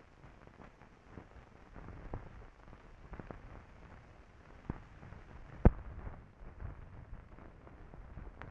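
Crackle and scattered pops from an old film soundtrack running over black leader, with one sharp pop about five and a half seconds in.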